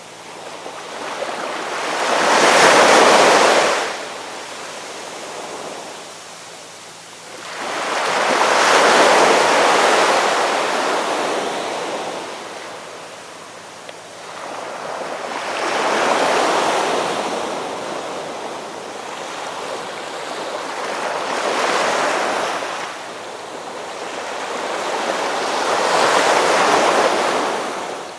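Ocean waves breaking and washing up the shore in five swells, each rushing in loudly and fading away, about every five to six seconds.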